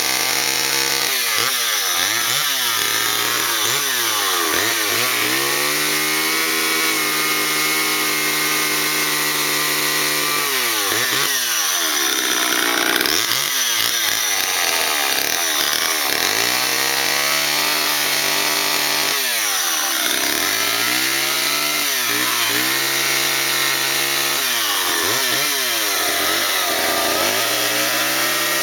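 Vintage Homelite two-stroke chainsaw cutting into wood, revving up and down again and again. Its pitch climbs, holds high for a few seconds at a time, then drops back to a lower pitch.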